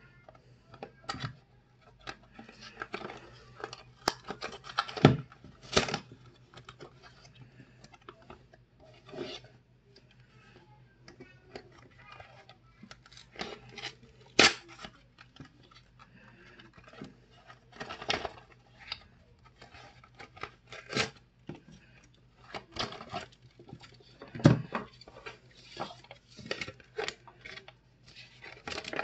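Yu-Gi-Oh! structure deck's cardboard box and card wrapping being opened by hand: irregular rustling, tearing and sharp crinkles of packaging, with a few louder snaps.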